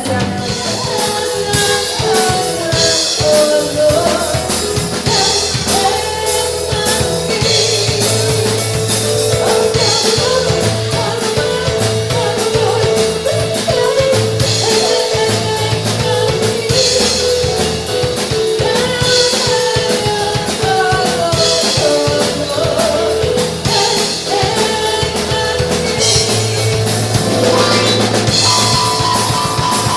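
A live band playing: a drum kit keeps a steady beat under a Yamaha keyboard's bass and chords, with a woman singing lead.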